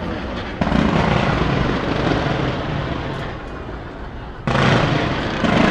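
Fireworks exploding: a loud boom about half a second in that rolls on as a rumble and slowly fades, then another sudden boom near the end.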